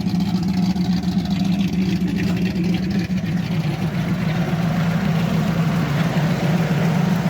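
1965 Ford Mustang's engine idling steadily through its Black Widow exhaust.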